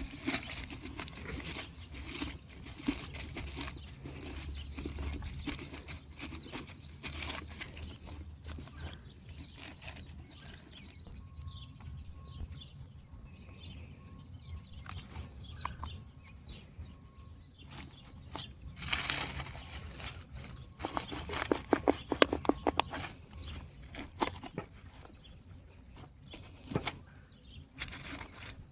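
Handling noises of repotting a plant: rustling, scraping and small knocks of soil and a pot being moved, with a louder run of rapid scraping about three quarters of the way through.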